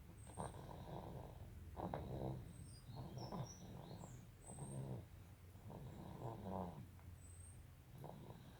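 Faint snoring in deep sleep: a regular series of rasping breaths, roughly one every second or so.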